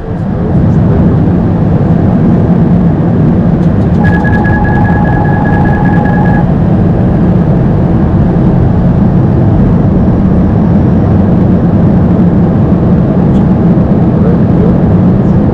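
Steady cockpit noise of an Airbus A220-300 in flight: a constant rushing hum of airflow and engines. About four seconds in, a single steady electronic tone sounds for a little over two seconds.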